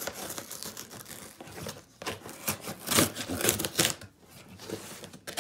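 Knife blade slitting the packing tape on a cardboard box, a run of short scratching strokes with tape tearing, loudest about three to four seconds in.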